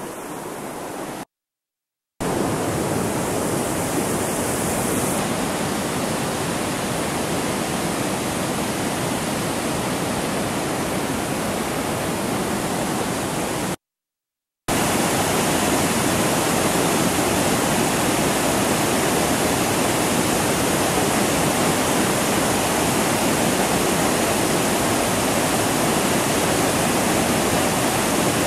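Steady rush of whitewater pouring over a waterfall, loud and even. It is broken by two brief dead-silent gaps, about a second in and about fourteen seconds in.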